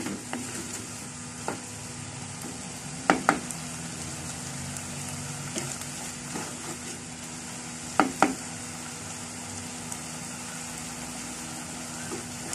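Cuttlefish pieces sizzling steadily as they stir-fry in an earthenware clay pot, being cooked down until their moisture is driven off. A wooden spatula stirs them and gives sharp knocks against the pot, the loudest coming in two quick pairs about three and eight seconds in.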